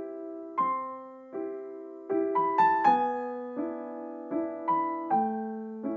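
Solo piano playing a gentle, slow piece: struck chords that ring and fade, about one every three-quarters of a second, with a brief flurry of quicker notes about two seconds in.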